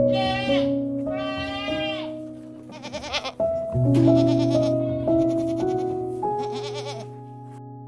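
Goat bleating: two drawn-out bleats in the first two seconds, then several quavering, tremulous bleats, over soft plucked-guitar background music.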